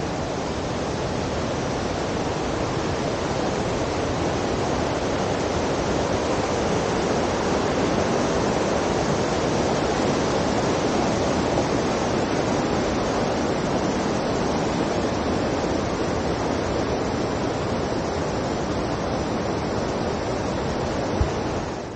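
Loud, steady rush of running water, like a mountain stream or waterfall close by, that cuts off suddenly near the end.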